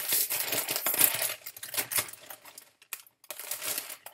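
Foil potato chip bag crinkling as it is handled and opened: dense crackling for about two and a half seconds, then a few lighter rustles near the end.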